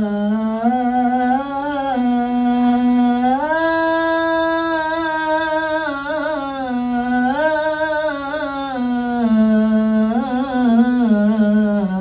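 A boy's solo voice singing an unaccompanied line of Islamic devotional song through a microphone, with long held notes and melismatic turns between them, and no drums.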